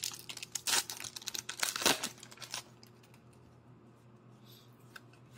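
Foil booster pack wrapper being torn open and crinkled, a dense crackling for about the first two and a half seconds, then only a few faint ticks.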